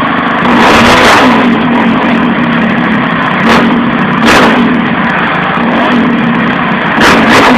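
450 motocross bike's single-cylinder four-stroke engine idling, running again after its repair, with the throttle blipped about five times: one longer rev early, two short ones midway and two in quick succession near the end.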